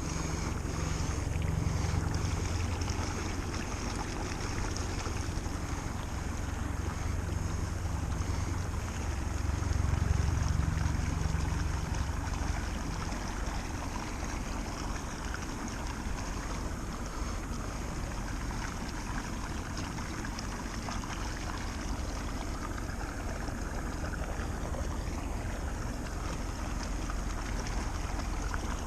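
Wind buffeting the microphone over a steady rushing hiss, with the low rumble swelling in gusts twice, near the start and about ten seconds in.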